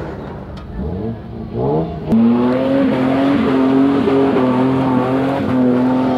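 Off-road 4x4's engine revving up twice in quick rising pulls, then held at high revs with a loud, steady note from about two seconds in.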